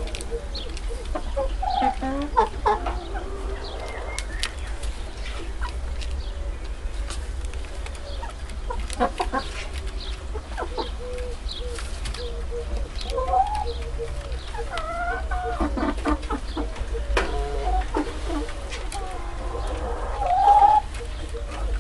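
Domestic hens clucking on and off, with short calls that rise and fall in pitch, over a steady low rumble.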